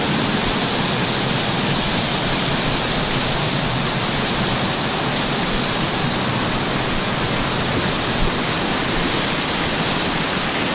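Waterfall pouring down steep rock close by: a loud, steady rush of water.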